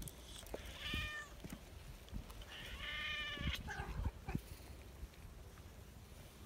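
Cat meowing twice, two drawn-out calls about two seconds apart, the second longer, as one stray cat mounts another.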